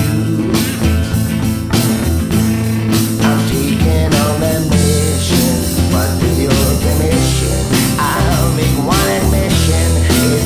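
Psychedelic rock band playing an instrumental passage, with a bending-note guitar lead over a steady drum beat.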